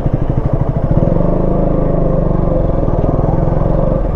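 Single-cylinder engine of a KTM Duke motorcycle running at low revs as the bike creeps along in stop-and-go traffic, a steady rapid low beat.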